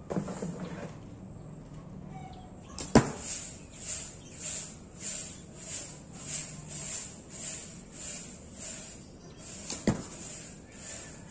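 Two sharp snaps of an Allawn Ahmar G1 horsebow being shot, the string slapping forward on release; the first, about three seconds in, is the loudest, and the second comes near the end. Under them runs a steady high whine that pulses about one and a half times a second.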